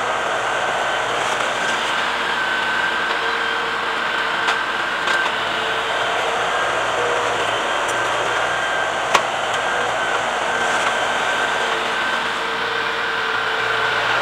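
LS compact tractor's diesel engine running steadily as its front-loader grapple works a scrap pile, with a steady high whine over the engine. A sharp knock about nine seconds in.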